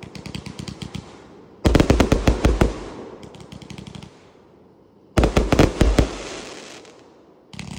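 A 288-shot consumer fireworks cake firing in volleys. About two seconds in and again about five seconds in, a quick string of sharp reports starts suddenly, then thins out into fading crackle; a third volley begins near the end.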